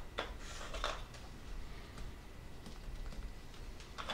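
Faint light clicks and taps from hands handling a small pigment jar on a workbench. There are two small taps in the first second, then only soft scattered handling sounds.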